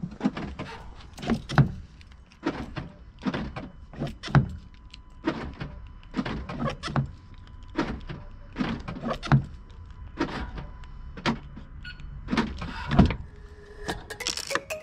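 Short mechanical clunks and brief motor whirs from a Range Rover Evoque's driver's door, repeated about once a second, with a faint steady tone through the middle. This is the door lock and latch at work; the door lock actuator is failing and no longer opens the door.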